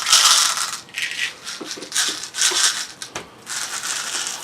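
BBs being poured through a funnel into a balloon, rattling in several bursts.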